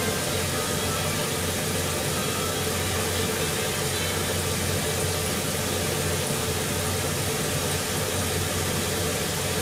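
Kitchen exhaust fan running: a steady rushing noise with a low hum that does not change.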